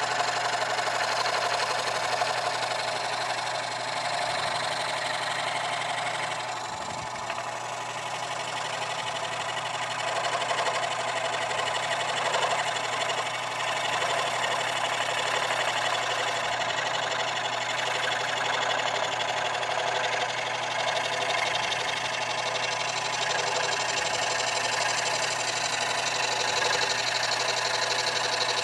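Early-1930s Dunlop scroll saw, belt-driven from a separate electric motor, running steadily as its blade saws through a wooden board.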